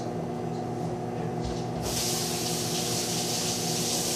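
Microwave oven running with a steady hum. About two seconds in, a loud rushing hiss starts, the loudest sound here, and cuts off near the end.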